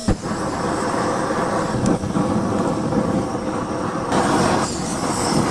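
Steady, loud roar and sizzle of a street-food stall's gas-fired pan, with a single click about a tenth of a second in.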